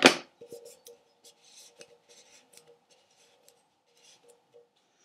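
Small craft items handled on a wooden table: a short loud clatter at the very start as the tape roll is set down, then faint scattered light clicks and rustles as the scissors and the tin-can drum are moved.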